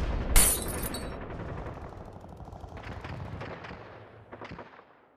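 Gunfire sound effect: a sharp bang about half a second in, then a low rumble that fades away with a few scattered shots, dying out near the end.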